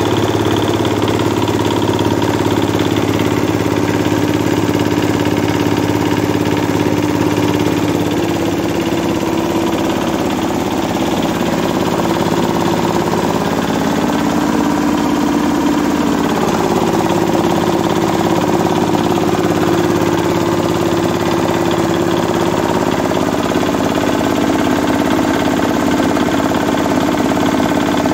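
Old 8 hp diesel engine running steadily under load, driving a belt-driven kiskisan rice mill as grain passes through. The pitch shifts briefly about halfway through.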